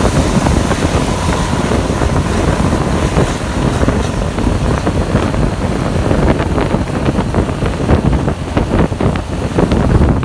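Intercity coach's exhaust running loud as the bus drives ahead, heard from close behind, mixed with wind and road noise and uneven low pulses.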